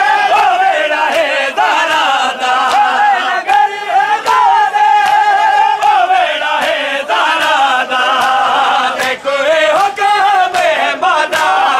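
A crowd of men chanting a noha lament in unison with a lead reciter. Sharp open-hand chest slaps (matam) keep a steady beat under the voices.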